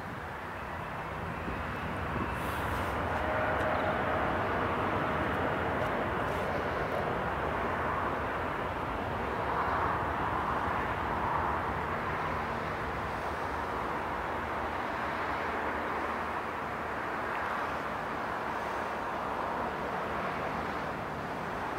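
Twin-engine jet airliner on final approach: a steady jet engine rumble and rushing noise that grows a little louder over the first few seconds, then holds.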